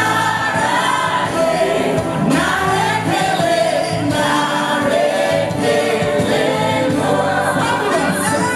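Gospel music with several voices singing together, played loud through a PA.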